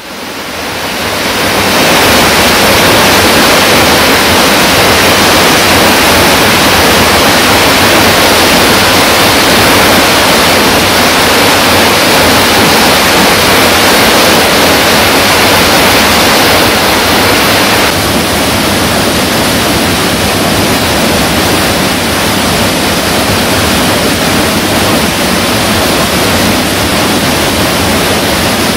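Mountain stream rushing down a waterfall: a loud, steady wash of water. It fades in over the first couple of seconds and drops a little about eighteen seconds in.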